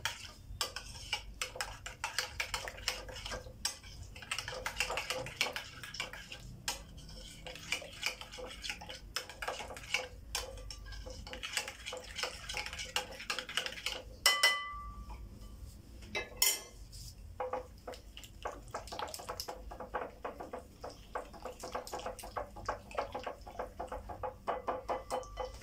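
A metal spoon, then a wire whisk, stirring a thick yogurt marinade in a glass bowl: quick repeated clinks and scrapes against the glass. Two sharper ringing clinks come a little past halfway.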